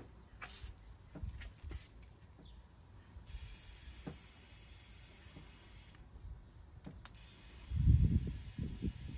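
Air hissing steadily into a freshly plugged car tire as it is inflated, starting about three seconds in and briefly breaking off partway. A few loud low thumps come near the end.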